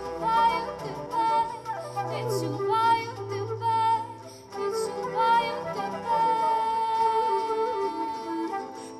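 A woman singing a slow song to strummed acoustic guitar, with flute and cello playing along.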